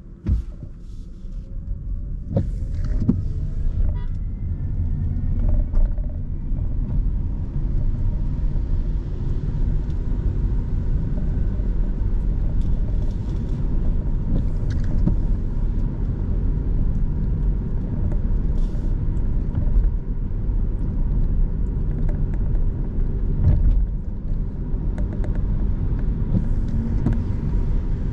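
Car driving on the road, heard from inside: a knock at the very start, then engine and road noise rising as the car picks up speed over the first few seconds, with a rising engine whine. After that comes a steady low rumble of engine and tyres while cruising.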